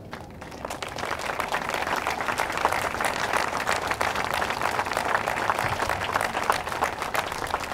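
Audience applauding, many hands clapping together. It builds up within the first second and eases off slightly near the end.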